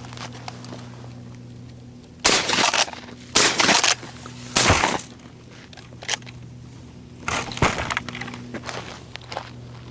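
Shotgun firing at doves: three shots about a second apart, then another about three seconds later.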